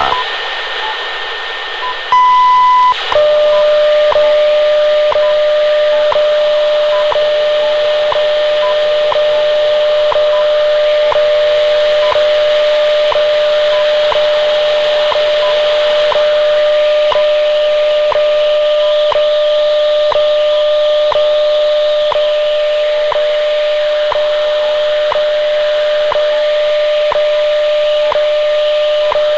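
WWV time signal received on a shortwave radio at 10 MHz, over steady static hiss. About two seconds in comes the 1000 Hz minute tone, lasting under a second. Then a steady 600 Hz tone sounds, broken by a tick once every second, with fainter high beeps falling between the ticks.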